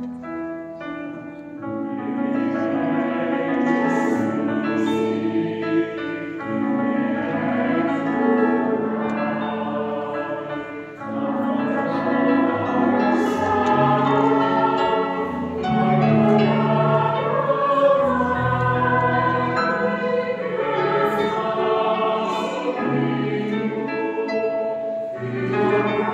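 A mixed choir of adult and children's voices singing a Christmas carol in several parts, holding chords, with deep bass notes under the upper voices in the middle.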